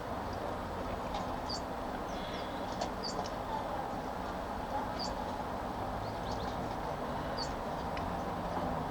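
Tits at a feeder giving short, high, downward-sliding chirps every second or two, over a steady low rumble.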